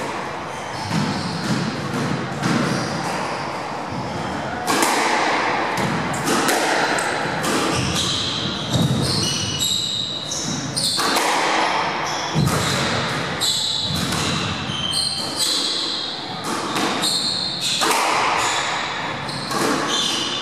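Squash rally: the ball smacking off rackets and the walls in quick irregular knocks, echoing around the court, with shoes squeaking on the wooden floor.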